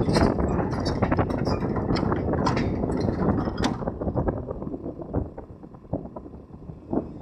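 Backhoe loader running with many sharp metal clanks and knocks, easing a little after about five seconds, as it is loaded onto a lowbed trailer.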